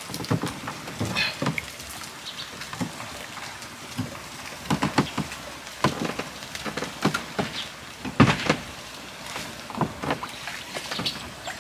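Irregular knocks, clicks and clatter, as of cookware and utensils being handled, with the loudest knock about eight seconds in.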